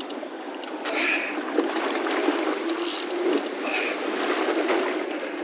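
Steady rush of sea water and wind around a small fishing boat at sea.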